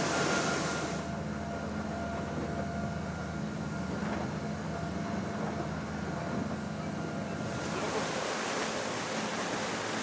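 Rigid inflatable boat under way at sea: a steady engine drone under rushing water and wind noise on the microphone. The hiss eases from about a second in and comes back near the end.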